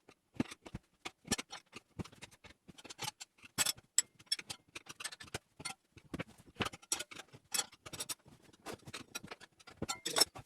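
Irregular clicks and knocks, several a second, of tyre levers and hands working a motorcycle tyre off its wheel rim once the bead has been broken.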